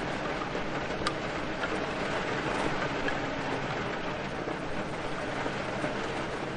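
Steady rain, an even hiss with scattered sharp drop ticks, one standing out about a second in.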